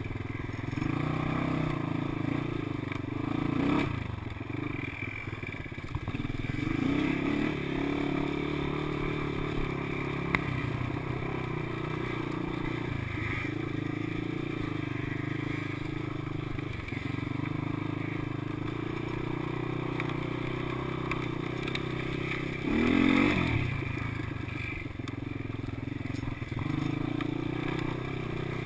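ATV engine running while the quad is ridden over a rough dirt trail. The engine note rises and falls with the throttle, with a louder rev about four seconds in and another about twenty-three seconds in.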